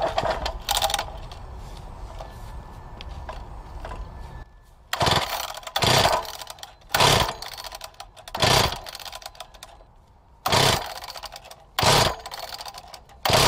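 Wacker BTS concrete saw's two-stroke engine being pull-started cold on choke: about seven sharp pulls of the recoil starter, a second or so apart, each a short burst of cranking, and the engine does not start.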